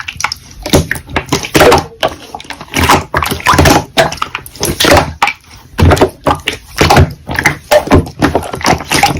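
Slime being squished and poked by hand, giving a quick, irregular run of sticky clicks and pops, with a short lull about five seconds in.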